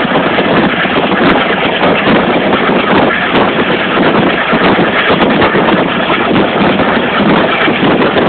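Steady, loud rushing noise of a moving train heard from an open window, with wind buffeting the microphone.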